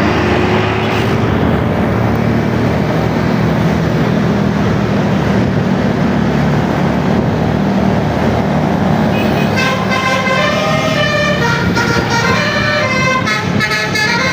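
A heavy vehicle's engine and road noise, then about ten seconds in a bus's 'telolet' multi-tone horn plays a quick run of changing notes.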